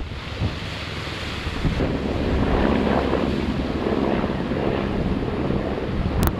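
Wind buffeting the microphone over the steady wash of surf, with a sharp crackle near the end.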